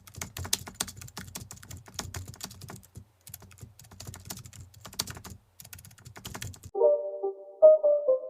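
Computer keyboard typing: rapid key clicks with two brief pauses, stopping about six and a half seconds in, when a melodic music intro begins.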